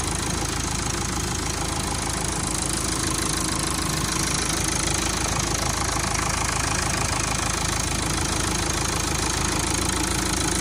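Renault Clio's diesel engine idling steadily and smoothly, purring, just after a new timing belt and water pump have been fitted and the coolant bled.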